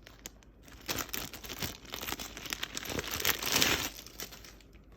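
Packaging crinkling and rustling in irregular bursts as the bag is handled, loudest about three seconds in.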